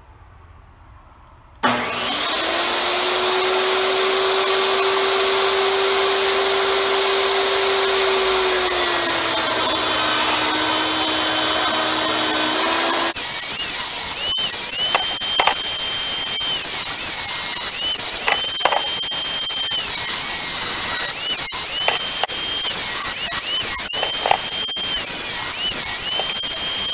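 Portable jobsite table saw (a DeWalt) switching on suddenly about a second and a half in and running at full speed with a steady whine. Through the second half it rips 2x6 boards lengthwise into studs, its pitch sagging under load and recovering several times as each board passes through the blade.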